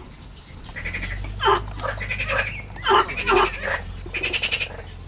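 Frogs croaking: several short calls that drop steeply in pitch, between fast rattling trains of croaks, repeated through the whole stretch.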